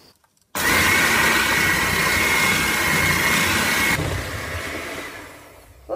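Electric hand mixer whisking eggs and sugar in a bowl: it switches on suddenly about half a second in and runs with a steady high whine, growing quieter over the last two seconds.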